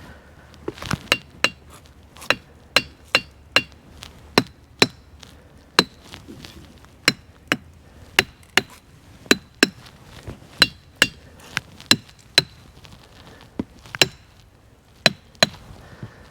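A hammer striking diabase boulders in a ringing-rock field, about two sharp blows a second at uneven spacing. Each blow has a brief high ring with only a faint metal sound; it is mostly the sound of hitting rocks with a hammer.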